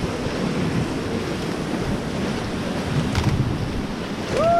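River rapids rushing around a raft, with wind buffeting the microphone; a person's voice calls out briefly near the end.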